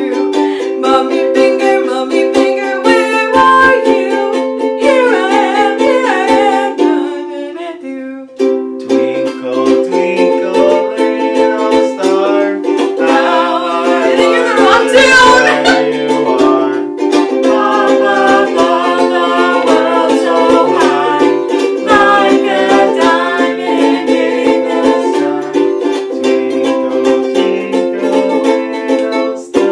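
Ukulele strummed over and over through the same four chords, with voices singing pop songs along to it. The playing briefly thins out about eight seconds in.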